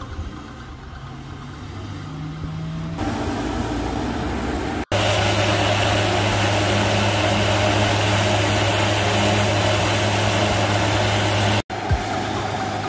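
An engine running steadily with a strong low hum, broken off sharply twice: about five seconds in and again near the end, where it is quieter.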